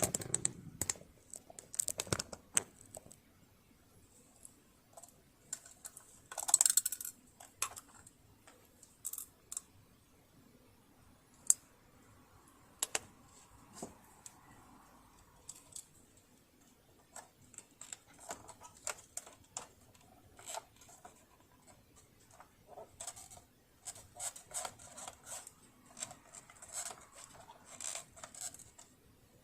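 Irregular small clicks and taps of tools and metal parts being handled on a household sewing machine during disassembly, some in quick runs, with a louder clatter about six to seven seconds in.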